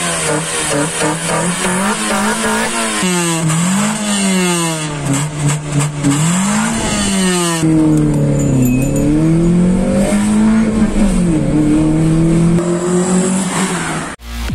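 Nissan Sentra B13 four-cylinder engine revving repeatedly, its pitch rising and falling with each blip of the throttle, in several cut-together takes.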